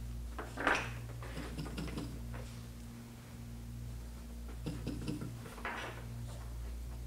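Steady low electrical hum, with a few brief scratchy noises about a second in and again a little past the middle.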